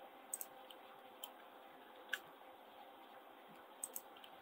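Faint clicks of a computer mouse and keyboard, about half a dozen, some in quick pairs, over a low steady hum.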